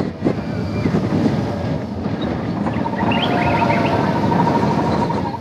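Roller coaster train of Expedition Everest rolling along its track, with a steady rumble and wind buffeting the microphone. About halfway in, a steady high-pitched whine joins the rumble.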